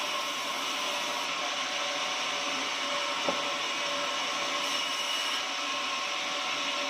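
Sawmill running steadily, a hiss with a few held whining tones over it, and a single short click a little over three seconds in.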